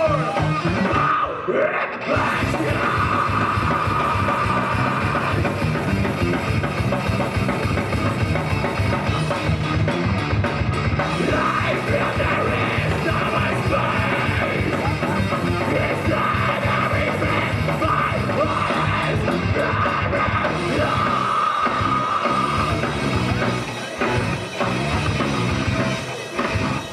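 A live heavy rock band playing loud, with distorted electric guitars, a pounding drum kit and shouted vocals. The music briefly stops a few times near the end.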